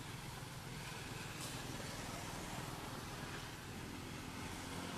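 Steady hum and rumble of motor traffic, engine noise under a continuous hiss.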